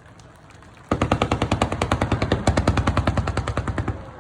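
Fireworks: after about a second, a rapid string of sharp cracks, about a dozen a second, runs for some three seconds and then tails off, like a crackling shell or a firecracker-style salvo.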